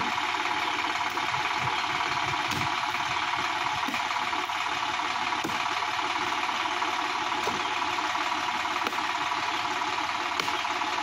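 Sonalika DI-50 RX tractor's diesel engine idling steadily.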